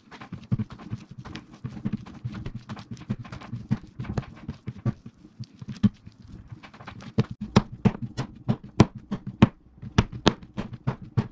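Soft pumpkin bread dough, with butter worked in, being kneaded by hand by slapping it against a wooden tabletop: a continuous run of wet slaps and thuds, which become sharper and more evenly spaced, about three a second, in the second half.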